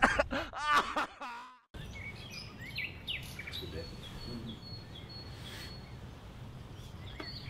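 A man's voice cries out briefly in the first second or so and cuts off abruptly. Then comes a steady outdoor background hum with birds chirping now and then.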